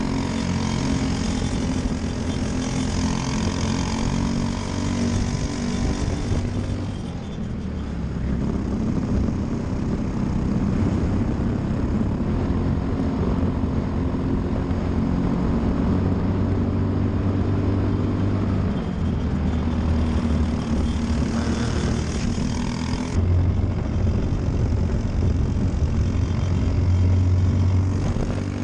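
Briggs & Stratton LO206 kart engine, a single-cylinder four-stroke, running at race pace, its note shifting with the throttle through the corners, with sharp changes about seven seconds in and again about 23 seconds in.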